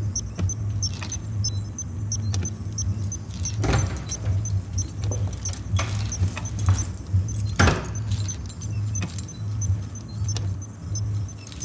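Sound-designed machinery: a low hum pulsing in a steady rhythm under fast, regular mechanical ticking, with two louder sharp clacks about four and eight seconds in.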